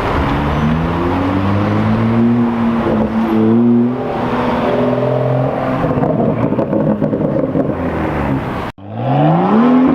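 BMW M2 F87's turbocharged straight-six with a performance exhaust, accelerating hard: the engine note climbs in pitch, steps at an upshift a few seconds in, then eases. It cuts off abruptly near the end and comes back on another steeply rising pull.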